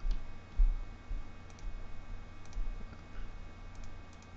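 Faint, scattered clicks of a computer mouse and keyboard, with a couple of dull low knocks in the first second.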